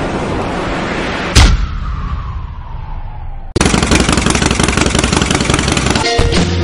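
Sound-design effects from an edited video intro. A noisy rumble is cut by one sharp, loud hit about a second and a half in, followed by a falling tone. About three and a half seconds in, a dense, loud rattling noise starts abruptly and carries on.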